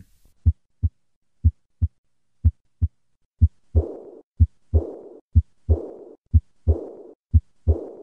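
Heart sounds at about one beat a second, each a pair of short low thumps (first and second heart sounds). From a little under four seconds in, a blowing murmur starts right after each second sound and fades away: the early diastolic decrescendo murmur of aortic regurgitation.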